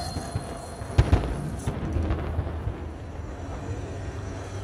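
Aerial fireworks: two sharp bangs close together about a second in, over a low rumble.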